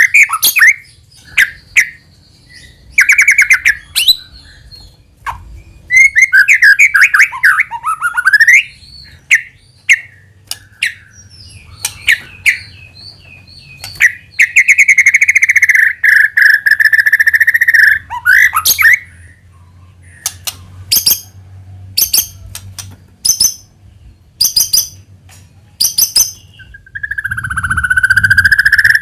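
White-rumped shama singing: fast warbled phrases and long held whistles, with a run of sharp ticking notes in the second half.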